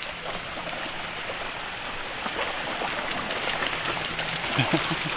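Shallow stream running steadily over stones, an even rushing noise, with a few short sounds near the end as dogs reach the water.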